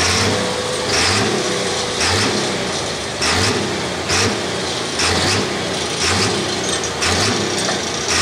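Pro stock diesel pulling truck's engine running after its pull, surging in short regular bursts about once a second.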